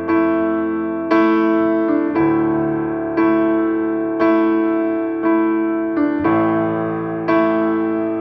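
Background music: slow piano chords, struck about once a second and left to ring and fade.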